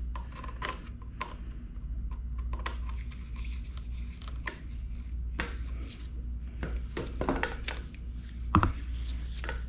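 Light, irregular metallic clicks and scrapes as a screwdriver turns the chain tensioning screw on a Craftsman chainsaw, tightening the chain on the bar, with one louder knock near the end.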